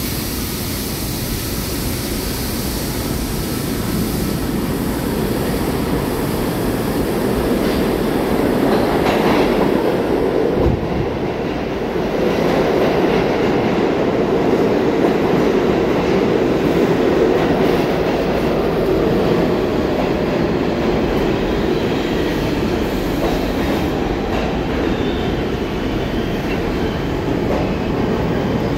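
New York City subway train running on the rails: a steady, loud rumble of wheels on track, with a faint high wheel squeal near the end.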